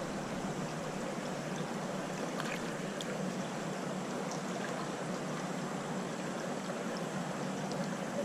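Creek water running steadily, with a few faint clicks.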